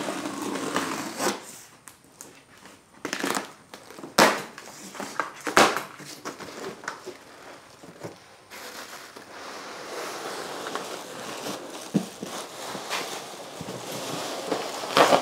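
A cardboard shipping box being cut open with a box cutter and its lid pried apart: scraping and tearing cardboard with a few sharp snaps and knocks, then steady crinkling of cardboard and the plastic wrap inside.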